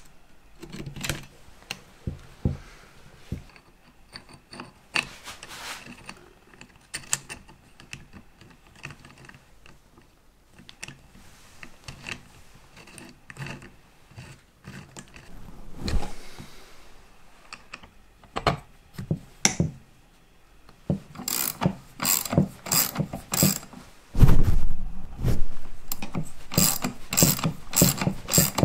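Metal clinks and knocks from hand tools on engine parts, then a ratchet clicking in quick, regular runs, about three clicks a second, growing louder with a low rumble under it near the end.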